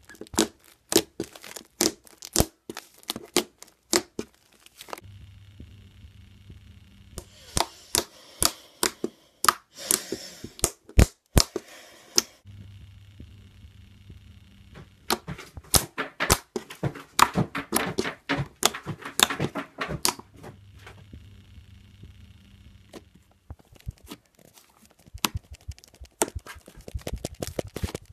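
Slime being pressed and worked by hand, giving rapid sharp pops and crackles in four spells with short pauses between.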